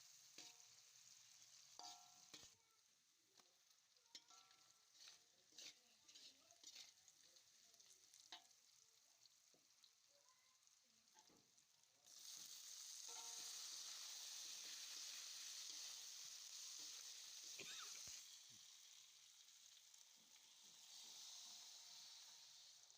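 Light clicks and knocks of a utensil against a pan. About halfway through, a sudden loud sizzle as food hits hot oil; it holds for several seconds, then eases off and swells again briefly near the end.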